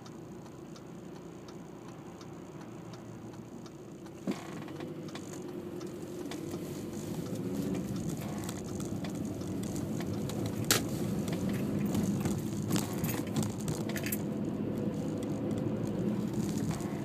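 Inside a car: a turn-signal indicator ticking steadily, a sharp click about four seconds in, then the engine hum and road noise grow louder as the car pulls away and gathers speed, with small rattles.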